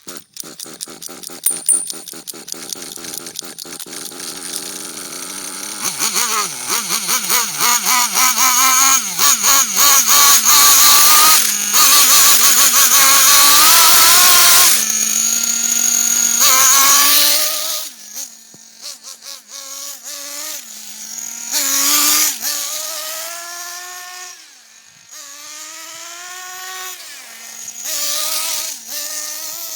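Small nitro RC car glow engine running with a fast buzzy note, held at high revs for several seconds in the middle, then blipped up and down repeatedly, its pitch rising and falling with each throttle stab.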